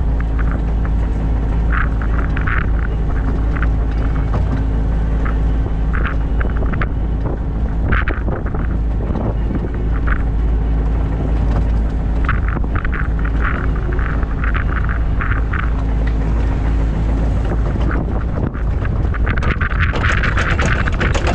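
New Holland Kobelco E50.2 mini excavator's diesel engine running steadily under load, with short repeated whines or squeals as the machine swings. Near the end a louder, denser rushing noise joins in.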